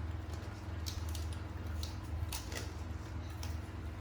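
Dogs chewing Indian jujube fruit: irregular, sharp crunching clicks, a few a second, over a steady low hum.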